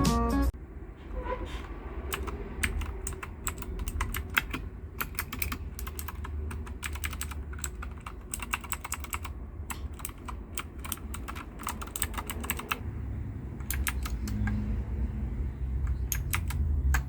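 Typing on a Husky Gaming Blizzard 60% mechanical keyboard: quick runs of key clicks for most of the clip, thinning to a few scattered keystrokes near the end, over a low steady rumble.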